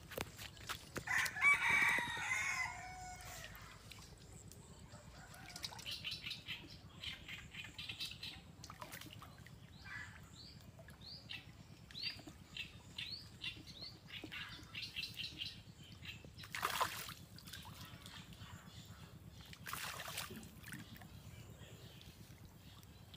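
A rooster crows about a second in, the loudest sound; then a bird chirps in short repeated high notes, about two a second, for some ten seconds. Two brief splashes of a fish thrashing in shallow water come later, a few seconds apart.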